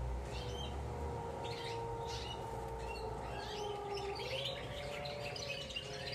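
Juvenile Spanish Timbrado canaries rehearsing their song notes (subsong): a series of short, separate chirps, thickening into continuous twittering near the end.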